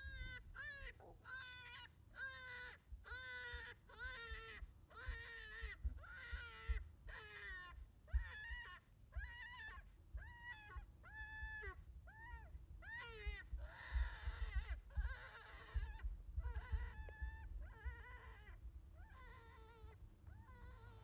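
Predator call sounding a run of short, wavering animal distress cries, repeated about twice a second, with a hoarser cry about two-thirds of the way through. Wind rumbles on the microphone underneath.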